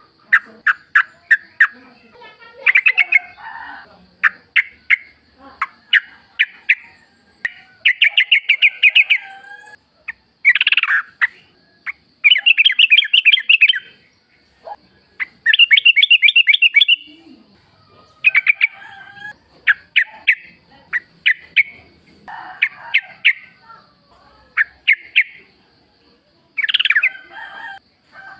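Wild yellow-vented bulbul (trucukan) singing: repeated short phrases of rapid, bubbly chattering notes, one phrase every second or two.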